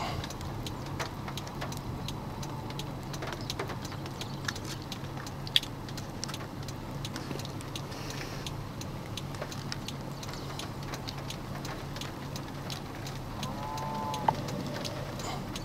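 Faint outdoor ambience: a steady low hum with scattered light ticks and two sharper clicks, one about five seconds in and one near the end. A brief pitched call, like a bird's, is heard shortly before the end.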